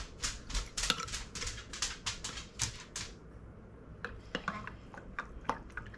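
Quick, regular clicking and tapping, about three a second, that stops sharply about three seconds in, followed by a few scattered lighter clicks.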